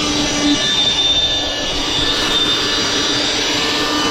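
Electric air-mattress pump running steadily, blowing air through its hose into the side tube of a PVC inflatable boat.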